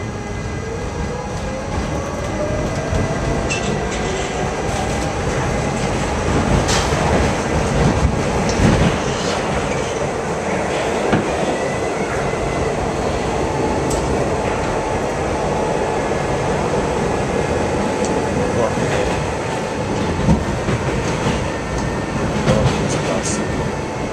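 Subway train heard from inside the car as it pulls out and picks up speed: the traction motor whine climbs in pitch over the first several seconds, then holds steady. Underneath is a constant rumble of the wheels on the track, with scattered sharp clicks from the rail joints.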